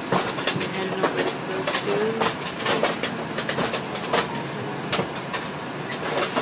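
Airliner cabin noise: a steady hiss and hum with frequent sharp clicks and knocks scattered through it.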